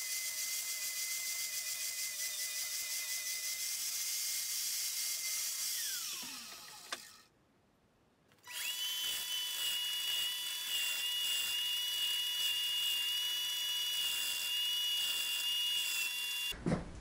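Angle grinder running while it smooths the cut edges of a stainless steel mesh, then switched off about six seconds in and winding down with a falling whine. After a short gap a disc sander starts suddenly and runs at a steady pitch.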